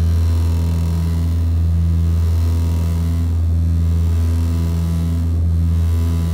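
Antonov An-24's Ivchenko AI-24 turboprop engines and propellers running, heard inside the cabin as a loud, steady low drone with a slow, regular throb in its higher tones.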